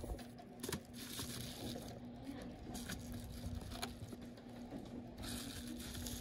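Paper mailing envelope being handled, rustling, with a few light clicks and taps, over a steady low hum.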